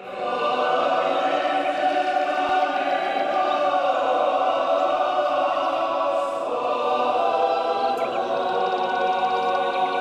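A choir singing a slow chant in long, held chords, starting abruptly at the beginning.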